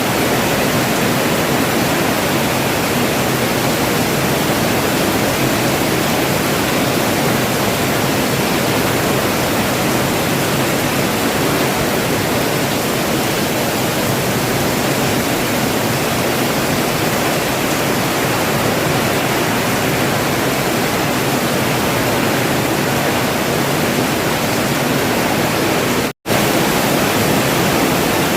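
Steady, heavy rainfall making a dense, even hiss. It cuts out completely for a split second near the end, then resumes unchanged.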